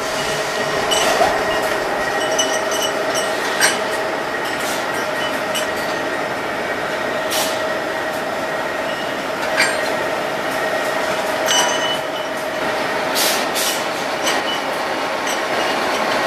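Double disc surface grinder running steadily while grinding steel connecting rods, a constant drone with a held whine. Short sharp metallic clinks come every few seconds as the rods knock together on the feed conveyor.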